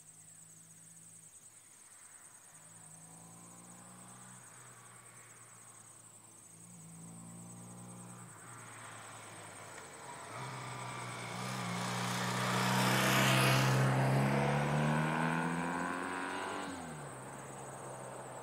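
1991 BMW R80S air-cooled flat-twin motorcycle accelerating up through the gears toward the listener: the engine note climbs, breaks at gear changes about four and eight seconds in, grows loudest as the bike goes by about thirteen seconds in, then drops in pitch and fades as it rides away. Crickets chirp steadily throughout.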